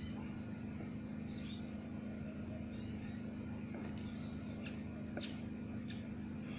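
A steady low hum, with a few faint short bird chirps and small ticks now and then.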